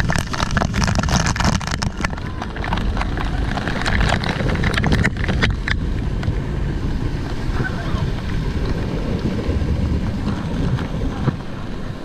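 Waterfall pouring down on the raft and directly onto the microphone: a heavy rushing noise with dense crackling splashes of water hitting the mic, thickest in the first six seconds.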